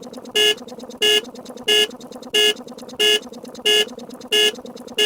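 A short, buzzy alarm beep repeating evenly, about three beeps every two seconds.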